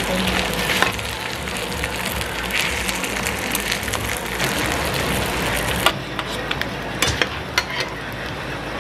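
Flat Korean dumplings (napjak mandu) sizzling as they pan-fry in oil in a nonstick frying pan. About six seconds in the sizzle drops lower and a few sharp clicks follow.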